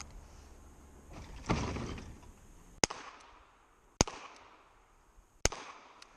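Three shots from a Colt Python revolver, about a second to a second and a half apart, each with a short ringing echo. A duller bang comes about a second and a half in, before the first of them.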